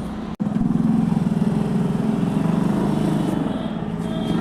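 Motorcycle engine idling steadily, starting about half a second in after a brief break in the sound.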